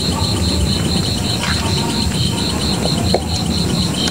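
Crickets chirping in a steady, even pulse of about three to four chirps a second over a low rumble of background noise.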